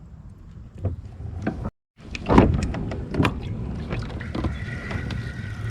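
Knocks and bumps of gear being handled on a plastic fishing kayak, with a brief gap in the sound, then from about four seconds in a steady high whine.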